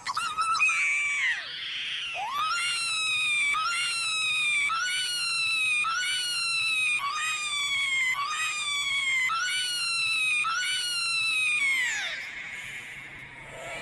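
Electronically pitch-shifted, effect-processed cartoon cry, looped. A high-pitched call repeats many times at an even pace, each repeat sliding down in pitch, then stops about two seconds before the end.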